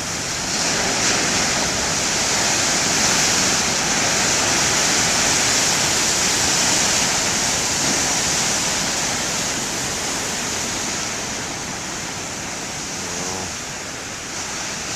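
Large waves breaking and washing against a cliffy shore: a steady roar of surf that swells about a second in and slowly eases toward the end.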